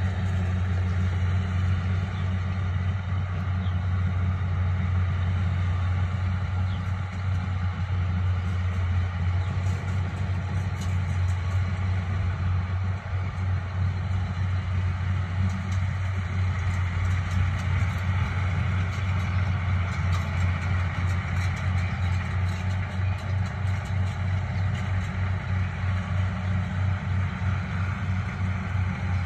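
Yanmar rice combine harvester with a four-cylinder 4TNV98 diesel engine, running at a steady working speed as it cuts rice: an even, low drone with no change in pitch.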